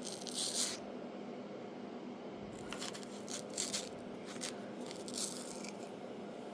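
A few short, irregular scrapes and rattles of wood putty being worked into the wood by hand, over a faint steady low hum.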